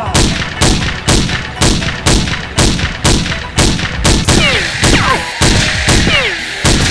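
Rapid gunfire sound effects from a blaster battle: a steady run of sharp shots, about two a second, with falling zapping tones partway through.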